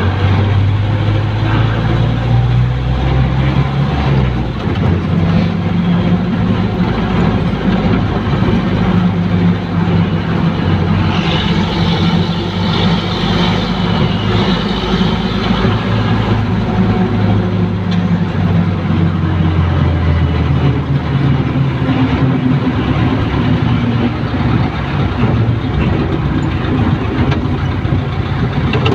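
Jeepney engine running while it drives, its pitch shifting a few times as it slows and picks up speed, over road and cabin noise. A higher-pitched whine joins for a few seconds near the middle.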